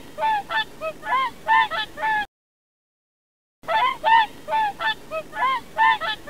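Swans honking: a quick run of short, arched calls, about eight in two seconds. It breaks off abruptly, and after a second or so of silence a second run starts.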